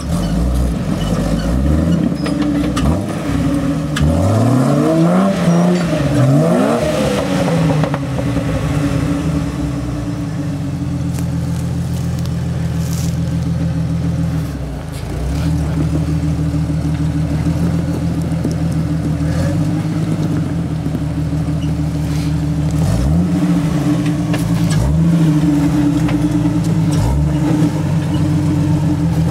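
Jeep engine working under load as it crawls up a steep rock ledge, running steadily with the revs rising and falling in several short bursts a few seconds in and again near the end.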